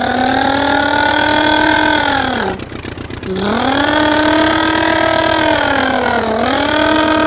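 A man imitating a truck engine with his voice, making long drawn-out 'bhaan'-like engine noises. There are three calls, each rising in pitch, holding and then falling away, with short breaks between them.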